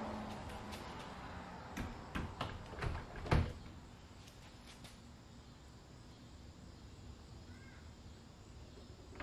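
Teardrop camper's rear galley hatch being lowered shut onto its new metal edge trim: a quick run of knocks and clicks over about a second and a half, the loudest knock about three seconds in as the hatch seats, then quiet room noise.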